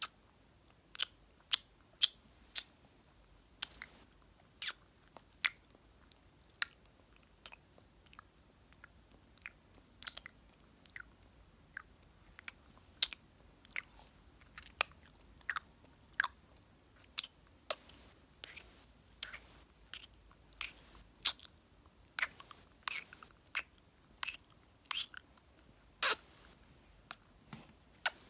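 Close-miked ASMR mouth sounds: a long string of short kisses and lip smacks, irregular clicks and pops about one or two a second.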